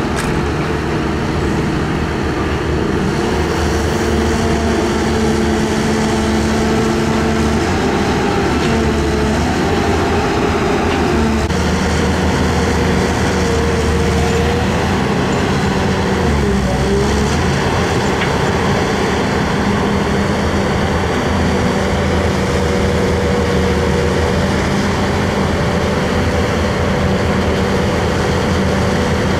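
Heavy excavator diesel engines running steadily under hydraulic load, the engine note shifting in pitch several times, with a brief dip and recovery about halfway through.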